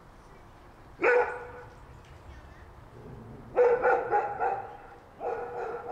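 A dog barking: one bark about a second in, then a quick run of barks after the middle and a few more near the end.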